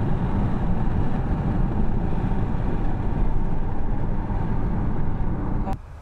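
Steady road and tyre noise inside a moving car's cabin, a low rumble with no distinct engine note, that cuts off abruptly near the end.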